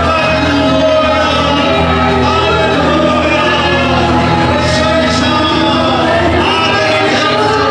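Church worship song: voices singing over a steady band accompaniment with sustained bass notes.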